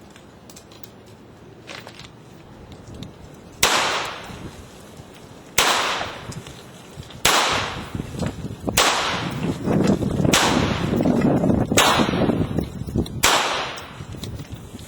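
Seven handgun shots fired at a steady pace, about one every one and a half to two seconds, starting a few seconds in. Wind rumble on the microphone rises and falls underneath.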